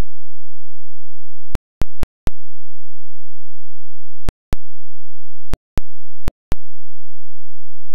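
Audio transfer artefacts rather than live sound: a steady signal cuts out five times for about a quarter of a second each. Each gap starts and ends with a sharp click, over a faint steady tone.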